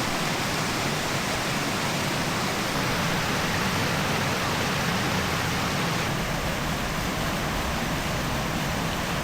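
Steady rushing water, an even roar that holds the same level throughout.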